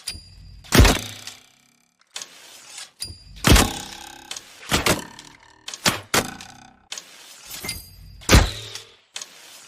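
Recurve bow being shot repeatedly: several sharp snaps of the released string, each followed by a brief ringing, with rustling handling noise in between. The loudest snaps come about a second in, at about three and a half seconds and near the end, with smaller double knocks between them.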